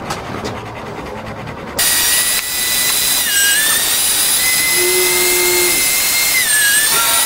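Electric meat grinder motor running with a high, steady whine, starting abruptly about two seconds in. The pitch sags briefly twice as meat is pushed down the feed tube and loads the motor.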